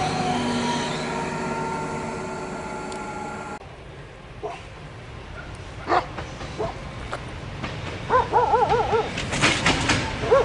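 An electric multiple unit pulling away, its motor whine falling in pitch and fading, cut off abruptly after about three and a half seconds. Later a dog barks in quick runs of short yelps, about eight seconds in and again near the end, as a diesel locomotive's rumble grows.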